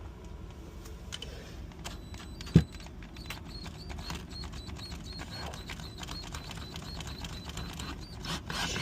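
Irregular small clicks and ticks of metal tools working the corroded lock of a motorcycle gas cap, with one sharp knock about two and a half seconds in.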